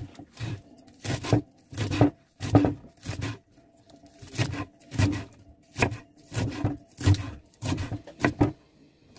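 Kitchen knife chopping fresh spinach leaves finely: a steady run of knife strokes, about two a second, with a short break about a third of the way through.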